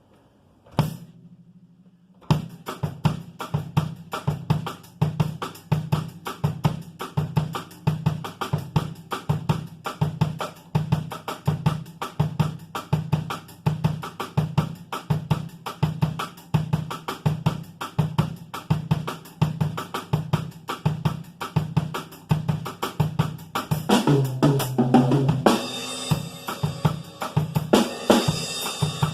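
Drum kit played in a steady groove of snare, bass drum and cymbals, as a drummer's sound check. One hit is heard before the beat starts about two seconds in. Near the end comes a busier fill with crash cymbals ringing.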